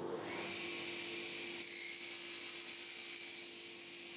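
Sliding-table panel saw cutting through a thin strip of timber. The cut starts suddenly and lasts about three and a half seconds, then the blade spins on unloaded.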